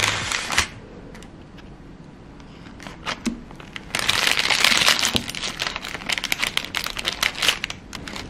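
Knife cutting through a thick baked chickpea chocolate-chip cookie on baking parchment: crunchy crackling of the crust with crinkling paper. A short burst comes at the start, then after a quiet pause a longer stretch of dense crackling from about halfway to near the end.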